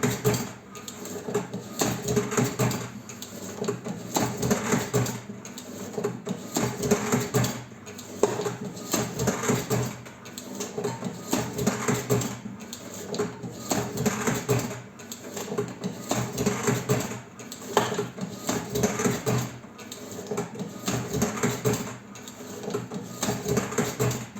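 BB 40 edge banding machine running: a steady motor hum under dense mechanical clicking and clatter that swells and fades about every two seconds.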